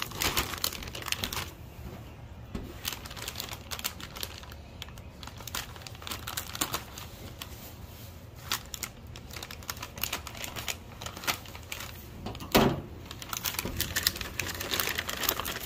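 Crinkling and rustling of a sealed metallized anti-static bag being handled and opened with a pocket knife, with many small irregular clicks and crackles. One louder knock about twelve and a half seconds in.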